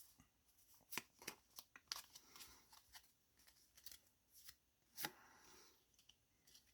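Faint, scattered clicks and light rustles of Yu-Gi-Oh! trading cards being handled and slid through the hands, a freshly opened booster pack being sorted.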